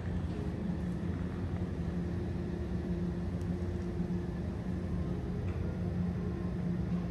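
Steady low mechanical hum made of a few held tones, with a couple of faint ticks.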